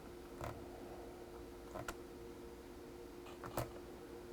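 Three sharp plastic clicks from a rewired Craft KC3 PC joystick being worked during a game, over two faint steady tones.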